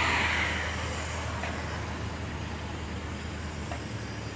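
Steady low hum of an idling truck engine, with a hiss near the start that fades within about a second.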